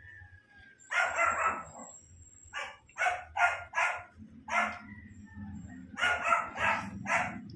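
A dog barking in short, loud barks, about ten of them, some in quick runs of three or four.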